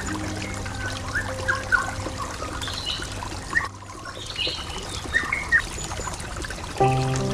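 Water trickling steadily, with birds chirping in short repeated notes. Soft, sustained music tones fade away in the first couple of seconds and come back near the end.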